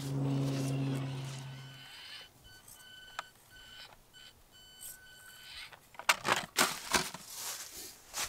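Small electric motor of an Axial SCX24 micro crawler whining steadily, stopping about two seconds in. A few short electronic beeps follow, and near the end the little plastic-bodied truck tumbles down the rocks with several sharp clattering knocks.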